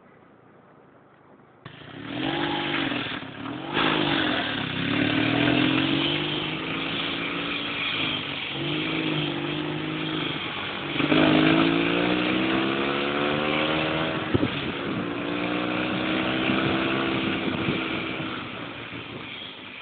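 Engine of a Saiting 650 dune buggy under way. It comes in abruptly about two seconds in, and its pitch rises and falls as the buggy accelerates and eases off. About halfway through there is one long climb in pitch, and a single sharp knock comes a few seconds later.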